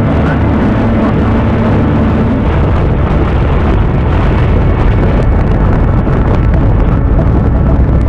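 Tour boat's engines running under way, with wind and water rushing over the microphone. A steady low engine hum gives way to a more even rush about two and a half seconds in.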